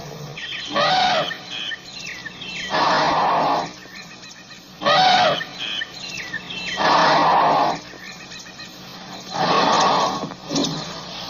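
African elephant calls: about five loud, harsh blasts, each under a second long, coming roughly every two seconds. Short thin chirps sound between them.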